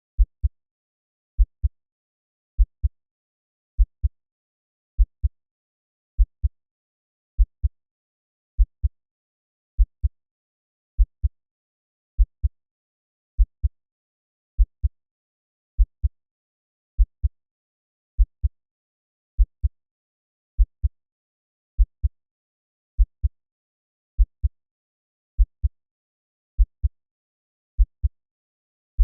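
Slow heartbeat sound at 50 beats a minute: low paired "lub-dub" thumps, a pair about every 1.2 seconds, steady and even, with silence between each pair.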